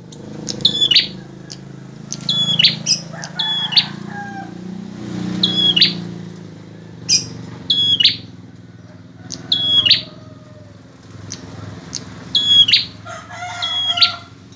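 Male prinia (prenjak) singing vigorously: sharp, high chirping calls repeated every second or two, with a quicker run of notes near the end.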